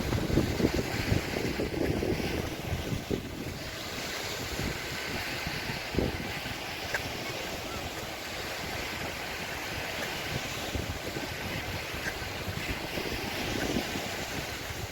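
Sea surf washing onto the beach, with wind buffeting the microphone in gusts, strongest in the first couple of seconds. A single short thump about six seconds in.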